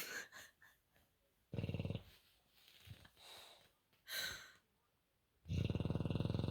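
Bulldog snoring in its sleep: a short rattling snore about one and a half seconds in, a thinner, higher breath just after four seconds, and a longer, loud rattling snore near the end, with quiet pauses between breaths.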